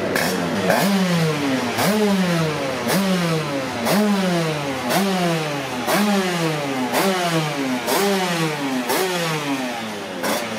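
85cc two-stroke race motorcycle engine revved on its stand, the throttle blipped about once a second. Each blip is a quick jump in revs that then falls away.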